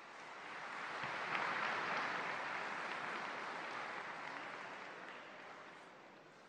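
Large audience applauding, swelling up over the first second or so and dying away gradually toward the end.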